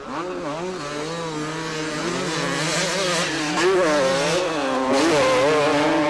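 Motocross racing motorcycle engine revving hard, its pitch rising and falling repeatedly as the rider works the throttle and shifts gears, growing louder toward the end.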